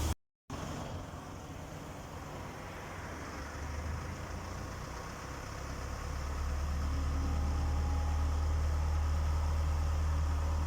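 A car engine idling steadily, its low hum growing louder about six seconds in, after a brief cut to silence at the very start.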